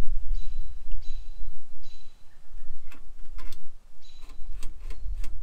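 Scattered light clicks and taps from a titanium hot tent stove being handled, most of them in the second half, over a steady low rumble.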